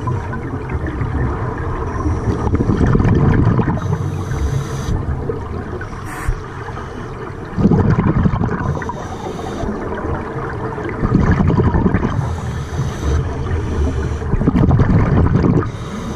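Scuba breathing through a regulator underwater: bubbling, gurgling exhalations surging every few seconds, with a fainter hiss between them.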